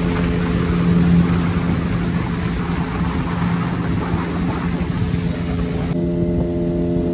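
Speedboat engine running steadily at speed, a constant hum under the rush of wind and water; the rushing noise cuts out abruptly about six seconds in while the engine hum carries on.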